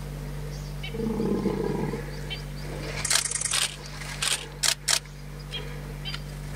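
Lions fighting an African buffalo: a low growl about a second in, then several short, harsh, noisy bursts.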